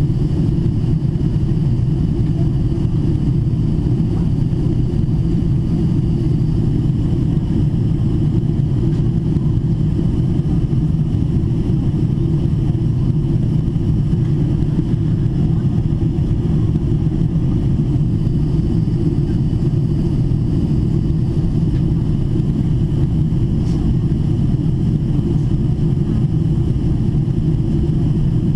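Steady in-flight cabin noise of a Boeing 777-300ER: a low rumble of airflow and GE90-115B engine drone, with faint steady high tones above it, as the jet descends slowly in a holding pattern.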